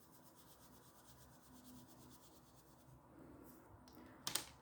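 Faint scratching of an oil pastel stick rubbing over paper as it shades in colour. A short sharp click near the end.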